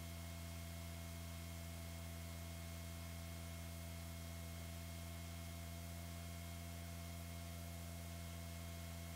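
Steady low electrical hum with hiss and a few faint, thin high-pitched whines, unchanging throughout.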